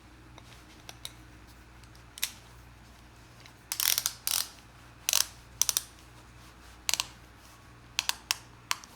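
Ratchet belt buckle clicking as the strap is worked through its micro-step adjustment: short sharp clicks, a few scattered at first, then in quick irregular groups through the middle and near the end.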